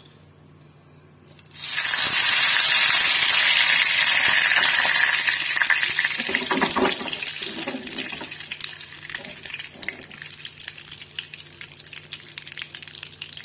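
Curry leaves dropped into hot oil with cumin and dried red chillies for a kadhi tempering (baghar): a sudden loud sizzle about a second and a half in, slowly fading into crackling and spitting.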